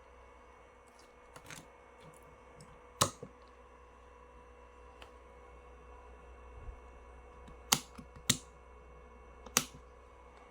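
A few sharp clicks: a loud one about three seconds in, two close together around eight seconds and another just after, with smaller ticks between, over a faint steady electrical hum.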